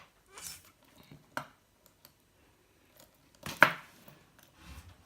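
Small metal clicks and handling noises as the links and tiny screws of a Leatherman Tread tool bracelet are taken apart, with one much louder sharp clack about three and a half seconds in.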